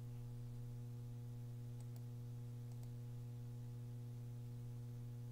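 Steady electrical mains hum on the recording, with a few faint clicks about two seconds in.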